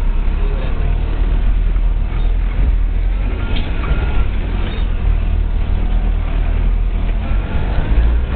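Four-wheel-drive vehicle driving along a rough dirt track: a steady, loud low rumble.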